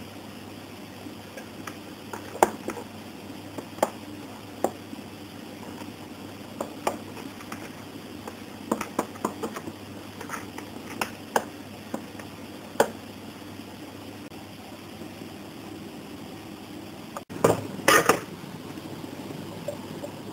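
A silicone spatula spreading thick batter in a square aluminium cake pan, knocking against the metal sides in scattered sharp clicks over a steady background hum. Near the end, after a short break, a quick cluster of louder metal clanks as the pan goes into a steamer.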